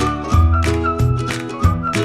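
Upbeat children's background music with a steady beat and a high, thin melody line over sustained low notes.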